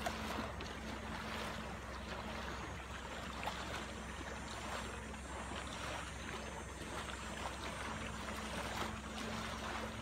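A distant motorboat engine humming steadily, under a soft, even wash of wind and lapping water.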